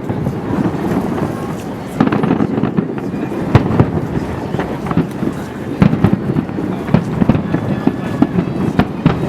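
Fireworks going off in quick succession: many sharp bangs and crackles over a continuous rumble, growing denser and louder about two seconds in.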